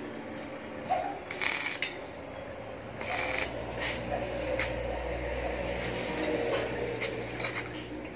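Arc welder making short tack welds to fix steel foot pads onto the legs of a steel flower rack. There are two crackling arcs of about half a second each, one about 1.5 s in and one about 3 s in, then a few lighter snaps, over a low hum through the middle.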